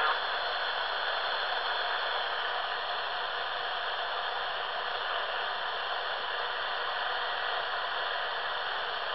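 Steady hiss of shortwave static from a Silvercrest SWED 250 A1 receiver tuned to 14.215 MHz in FM mode, with no station transmitting.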